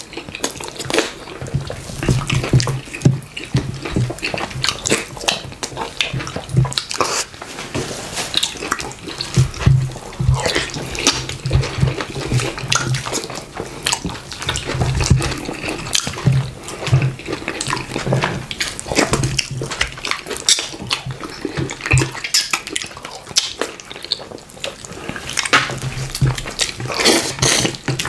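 Two people eating fufu and slimy okra soup with chicken by hand: wet chewing, lip smacks and squelches, many short clicks in quick succession.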